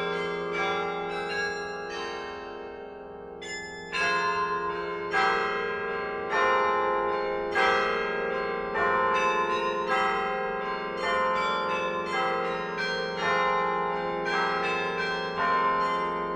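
Church tower bells ringing, a series of notes struck one after another, each left to ring on into the next. A quieter stretch gives way to a louder stroke about four seconds in.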